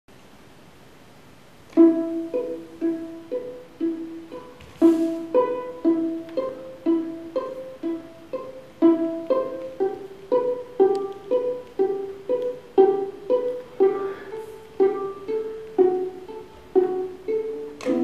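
A plucked string instrument playing a slow melody, about two notes a second, each note struck and then fading, starting about two seconds in.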